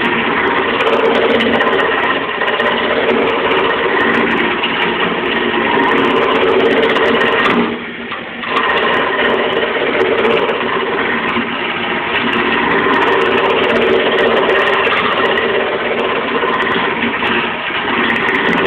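Wood lathe running while a hand-held turning tool cuts a spinning wooden spindle: a steady scraping hiss of the cut over the hum of the lathe, dipping briefly about eight seconds in.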